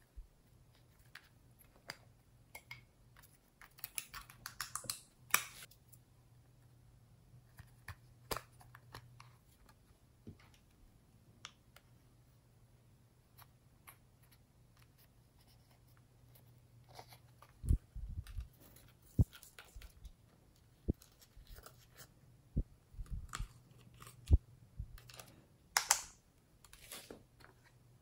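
Pressed eyeshadow being scraped and crumbled out of plastic palettes with a small plastic spatula: scattered scratching and light clicks of the plastic cases. Several low knocks come in the second half, and there is a faint steady hum underneath.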